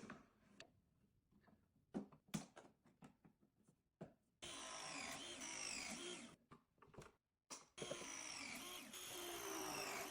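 Scattered knocks of handling, then a power drill run in two bursts of about two and three and a half seconds, its motor pitch sweeping down and up again as the speed changes under load.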